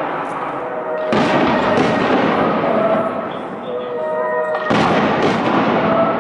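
Aerial fireworks going off: two pairs of sharp bangs, one pair about a second in and another near five seconds, with a dense crackle and rumble from the shells between them.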